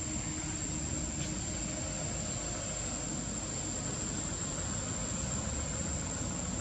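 Steady background noise with a constant high-pitched whine running over a low, even hiss; no monkey calls are heard.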